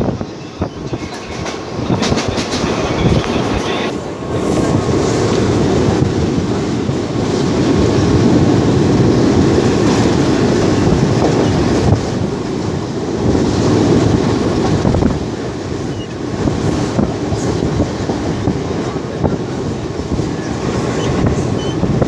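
Train running across a railway bridge, heard from on board: a steady heavy rumble of wheels on rail with a clickety-clack of rail joints, growing louder about four seconds in.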